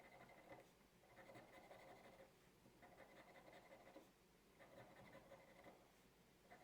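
Faint scraping of a scratch-off lottery ticket's coating being rubbed off, in bouts of about a second with short pauses between them.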